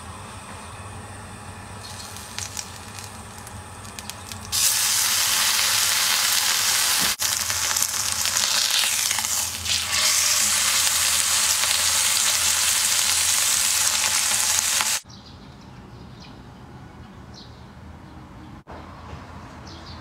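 Steak searing in hot olive oil in a cast-iron skillet: a loud, steady sizzle that starts suddenly about four and a half seconds in and cuts off abruptly about fifteen seconds in, with a quieter hiss before and after.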